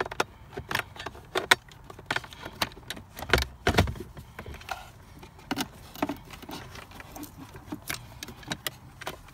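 Wiring harness and plastic connectors being handled and fed up into the truck's shifter housing: irregular clicks, rattles and light knocks of plastic, with a couple of louder knocks a little past the middle.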